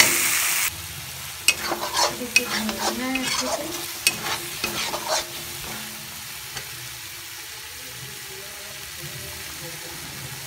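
Onion and spice masala frying in a kadhai, starting with a loud sizzle that cuts off abruptly under a second in. For about the next four seconds a steel spatula scrapes and clicks against the pan as the freshly added pepper and cumin powder are stirred in, and a quieter sizzle carries on after that.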